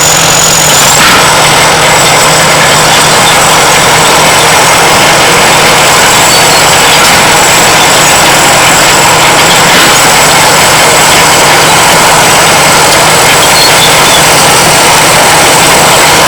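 Caterpillar D7 bulldozer's diesel engine running steadily with a high turbocharger whistle, which rises slightly in pitch about a second in.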